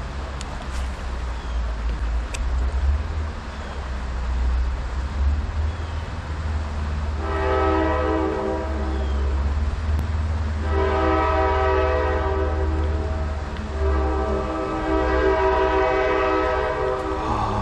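A train horn sounding three long blasts, the first starting about seven seconds in, over a steady low rumble.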